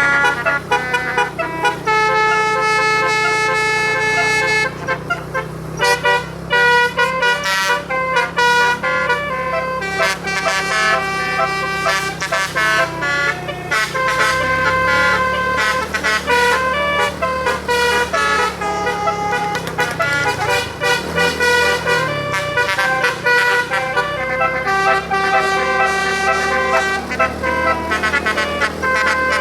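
Bus telolet horn playing a melody: a run of sustained horn notes, several pitches in sequence, changing about every second, over a steady low hum.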